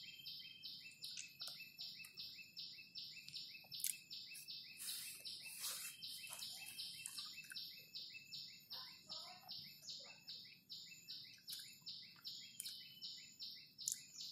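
Faint, rhythmic high-pitched chirping from a wild animal, repeating evenly about three to four times a second, with a few soft mouth sounds of durian being eaten near the middle.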